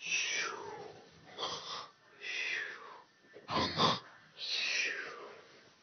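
A man snoring in his sleep, made higher in pitch by a helium voice-changer app: rough rasping breaths, the one near the middle the loudest, each followed by a longer whistling breath that slides down in pitch.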